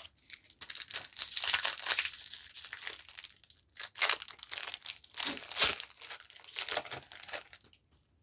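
Foil wrapper of a Pokémon trading-card booster pack crinkling and tearing as it is opened by hand, a dense crackle with brief pauses that stops shortly before the end.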